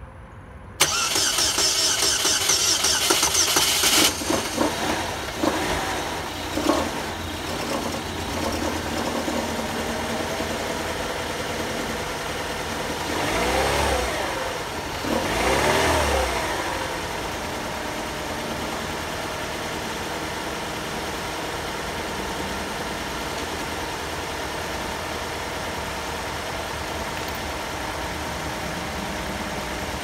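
2006 Chevy Cobalt's 2.2-litre Ecotec four-cylinder engine started: the starter cranks for about three seconds, then the engine catches and runs. About halfway through it is revved twice briefly, then it idles steadily. It runs smoothly, no longer stumbling from the random misfire.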